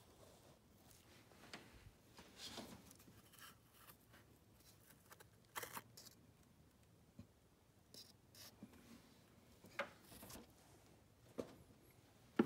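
Near silence, broken by a few faint, short rustles and light clicks from handling.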